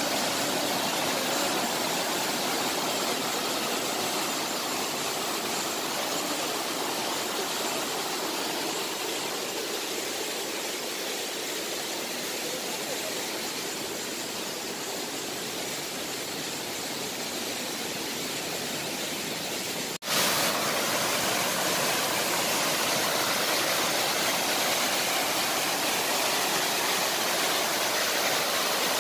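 Waterfall cascading over rocks: a steady rush of falling water. About two-thirds of the way through it breaks off for an instant and comes back slightly louder.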